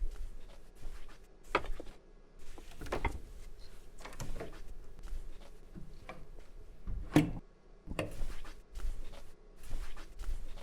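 Irregular knocks and clicks of objects being handled in a small room, with a sharper knock about seven seconds in.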